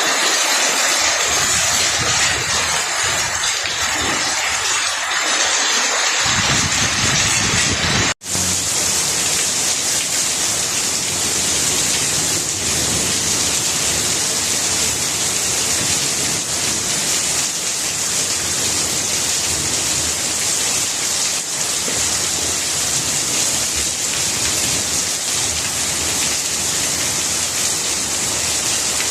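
Steady rain falling on plant leaves, an even hiss of many drops. About eight seconds in the sound drops out for an instant and comes back brighter and steadier.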